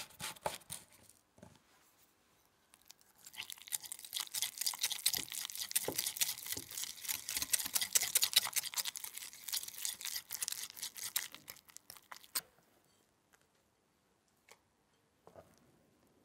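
Wire whisk beating a cream cheese mixture in a small glass bowl: rapid, steady scraping and clicking of the wires against the glass for about nine seconds, starting a few seconds in and stopping suddenly. A few light clicks come just before it.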